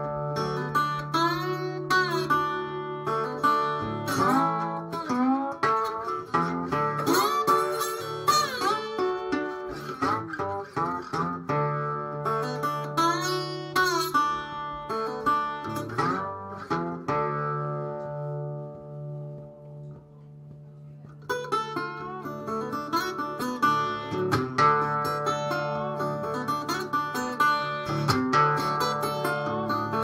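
Johnson metal-bodied resonator guitar played bottleneck-style with a slide in open D tuning: a Delta blues figure of picked treble notes sliding in pitch over a steady droning bass note. About 17 seconds in the picking stops and the strings ring down for a few seconds, then the playing starts again at about 21 seconds.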